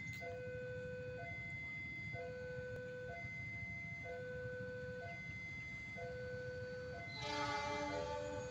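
Level-crossing warning alarm sounding a repeating two-tone electronic chime, one cycle about every two seconds, over a low rumble. About seven seconds in, the approaching diesel locomotive's horn blows a chord for about a second and a half, the loudest sound.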